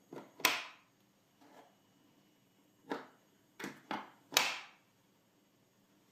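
Wooden box being handled: a series of separate wooden knocks and clunks, the loudest about half a second in and again about four and a half seconds in.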